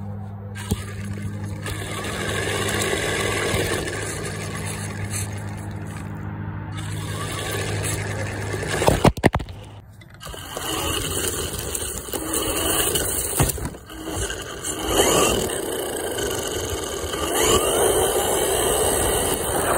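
Small battery-electric four-wheel-drive RC truck driving over dirt in several passes: its motor whines up and down while the tyres scrape and kick up dirt, with a brief clatter of knocks about nine seconds in.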